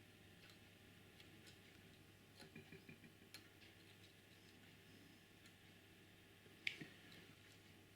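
Near silence with faint, scattered clicks and taps from handling the model locomotive's bogie while its soldered wires are checked. One sharper click comes about two-thirds of the way through.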